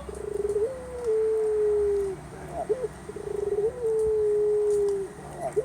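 Puter (collared dove) cooing: twice, a rolling, fluttering opening runs into a long drawn-out coo that slowly falls in pitch, with brief faint chirps between the calls.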